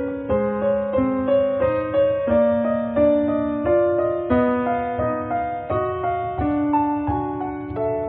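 Background piano music: a gentle melody of held notes with soft chords beneath, a new note about every half second.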